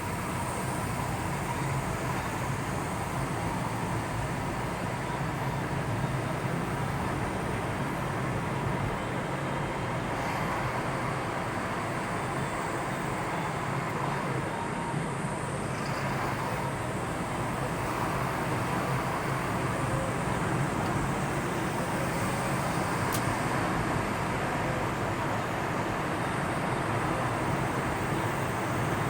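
Steady vehicle and road noise: a constant low rumble under an even hiss, with no breaks.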